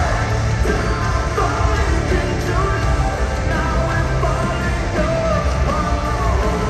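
Loud live rock music from a band at a concert, with a voice singing over it.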